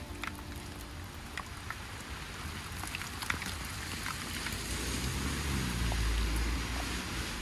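Steady rain, with scattered drops ticking close by. A low rumble swells in during the second half.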